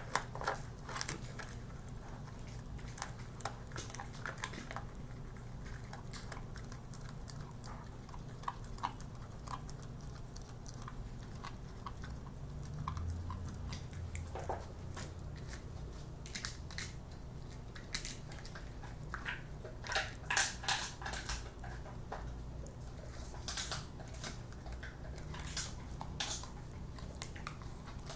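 A Bernese Mountain Dog and then an Italian Greyhound chewing pieces of dried buffalo trachea: irregular sharp crunches and gnawing, with the crunches coming thicker in the second half.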